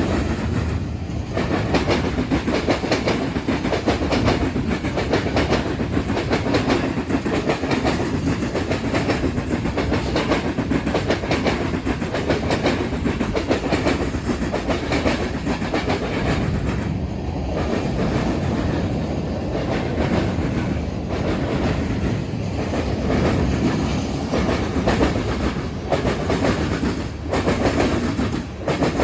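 BNSF freight train cars rolling past, their wheels clattering over a railroad diamond crossing in a steady stream of clicks and clacks.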